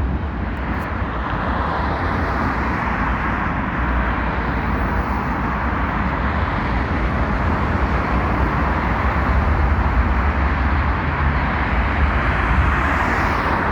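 Freight train rolling past on elevated tracks: a steady, unbroken rumble.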